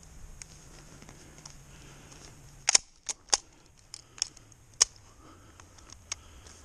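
Sharp metallic clicks and clacks from working the action of a 1925 Winchester 16-gauge shotgun, about seven in all, the loudest a quick double click a little under three seconds in.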